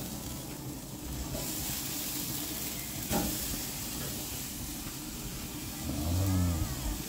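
Steak sizzling on a hot grill grate after being turned with tongs; the sizzle grows louder about a second and a half in, and a brief knock sounds about three seconds in.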